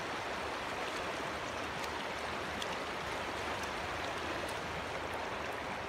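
Shallow river water running over stones, a steady rushing.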